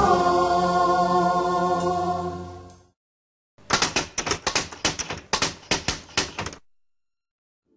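A Christmas song ends on a held chord that fades out over about three seconds. After a short silence comes a quick run of about twenty typewriter-key clicks over some three seconds, a typing sound effect for text being typed out.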